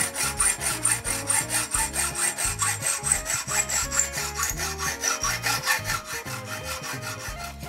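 Hacksaw cutting through a metal screw clamped in a bench vise: rapid back-and-forth strokes, with a high thin ringing from the blade that slowly drops in pitch. The strokes grow quieter near the end.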